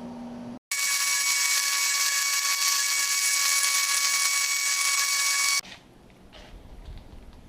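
A high-speed power tool running with a loud, steady, high-pitched whine that starts and stops abruptly, about five seconds long. Before it there is a brief, quieter steady hum.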